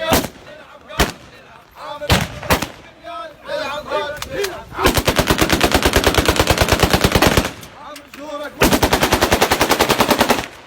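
Celebratory gunfire: a few single shots in the first seconds, then two long bursts of rapid automatic fire, the first about two and a half seconds long and the second a little under two, with voices between them.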